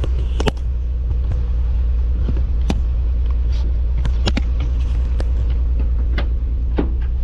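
Nissan 300ZX's V6 engine idling with a steady low rumble after a spark plug change, with several sharp clicks and knocks over it.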